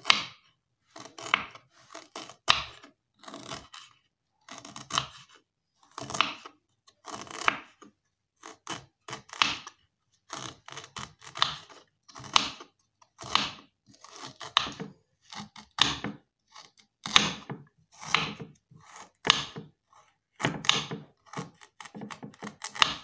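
Knife slicing peeled red ginger into small pieces: a long run of short, crisp cuts, roughly one a second, irregularly spaced.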